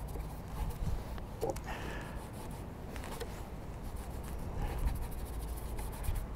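Bristle brush dabbing and scraping oil paint onto a painting panel, faint scratchy strokes over a low steady rumble.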